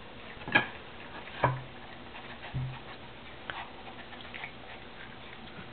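Boston Terrier puppy nosing and licking at her empty food bowl: a few sharp clinks of the bowl in the first seconds, two of them with a dull knock, then faint light ticking.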